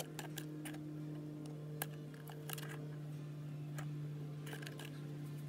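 Scissors snipping through a thin plastic mold tray: scattered small clicks and snips, over a steady low hum.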